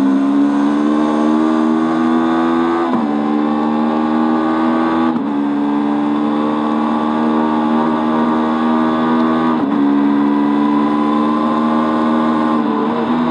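Honda CB500 parallel-twin race bike engine at full throttle, heard onboard. It climbs steadily in pitch and drops sharply at each upshift: about three seconds in, about five seconds in, near ten seconds, and again right at the end.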